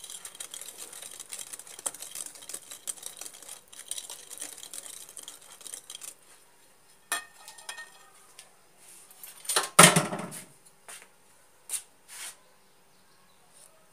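Metal wire whisk beating a soft butter-and-sugar batter in a glass bowl: a fast, busy scraping clatter that stops about six seconds in. A few light clinks follow, with one louder knock at about ten seconds.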